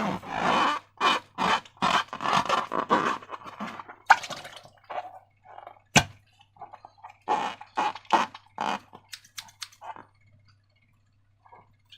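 Slime being squished and stretched by hand: a run of irregular wet, sticky squelches and crackles, with one sharp click about six seconds in. The sounds thin out toward the end.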